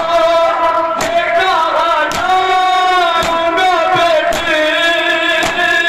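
Men chanting a noha in unison through a microphone, holding long wavering notes. Under the chant, mourners strike their chests with open hands together about once a second, five strikes in all (matam).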